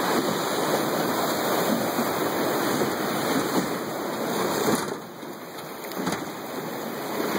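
River rapids rushing and splashing against the bow of an aluminum drift boat as it runs through whitewater. The rush drops off about five seconds in as the boat comes out onto smoother water.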